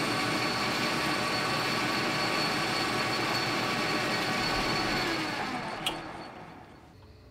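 Small metal lathe running steadily with a brass workpiece spinning in the chuck, then switched off and spinning down from about five seconds in, its sound falling away to quiet. A single sharp click comes near the end of the spin-down.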